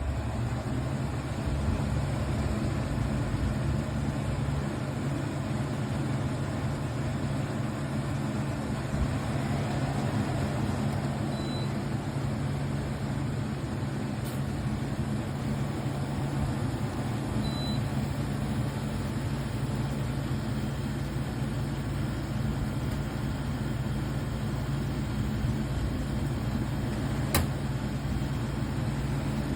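Amazon Basics 10,000 BTU portable air conditioner running, a steady hum of its compressor and fan, with two brief faint high beeps partway through.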